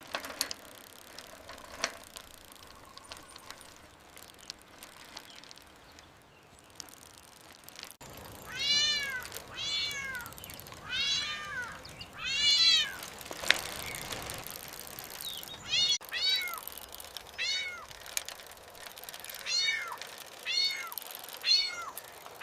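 A cat meowing over and over, about a dozen short meows each rising and falling in pitch, starting about a third of the way in after a few seconds of faint background with scattered clicks.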